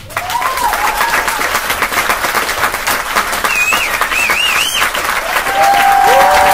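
Audience applauding, with a few wavering whistles over the clapping about halfway through and near the end.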